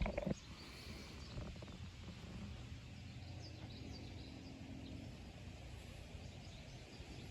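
Outdoor field ambience: a low steady rumble with faint, high, short bird chirps here and there, and a brief knock right at the start.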